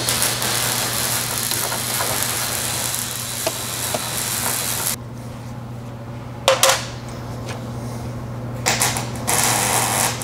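A 12 mm ratcheting wrench working the nut off a rear sway bar end link. There is steady ratcheting noise for about the first five seconds, then it goes quieter, with a sharp click partway through and more clatter of the wrench near the end.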